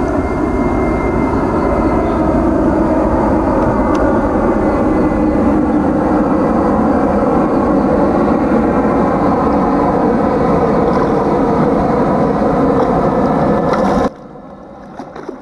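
Steady engine drone, a low rumble with several held tones above it, that cuts off abruptly about a second before the end.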